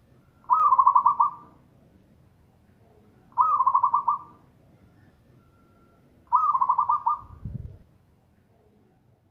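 Zebra dove (perkutut) singing: three loud rolling coo phrases about three seconds apart, each lasting about a second. A short low thud comes just after the third phrase.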